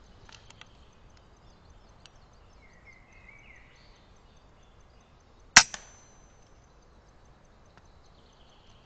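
A single air rifle shot about five and a half seconds in, a sharp crack, followed a split second later by a fainter knock that fits the pellet striking.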